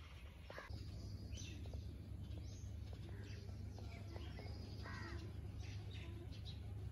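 Birds chirping and calling in short scattered notes, with a crow cawing once about five seconds in, over a steady low rumble.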